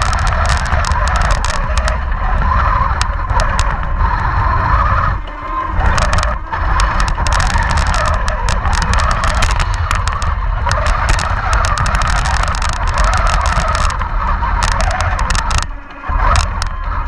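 Radio-controlled model Panther tank running, heard from on board: a steady whirring of its drive motors, gearboxes and tracks over a low rumble. It drops out briefly about five seconds in and again near the end.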